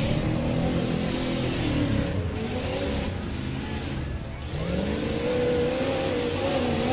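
Tuff truck's engine revving up and down as it drives the dirt course, heard from across the track. The pitch rises and falls several times, dips about four seconds in, then climbs and holds high before dropping at the end.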